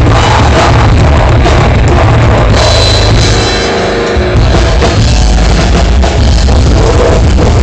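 Loud rock music with drums, bass and guitar, easing briefly about halfway through before the full band comes back in.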